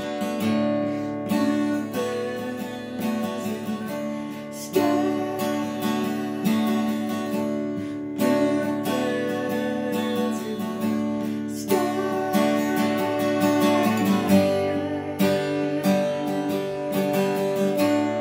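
Acoustic guitar music, strummed and picked.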